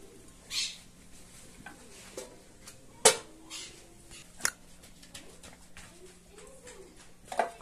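Metal pot lid clanking down onto a clay cazuela about three seconds in, ringing briefly, followed by a lighter knock and another clatter near the end as the lid is handled again.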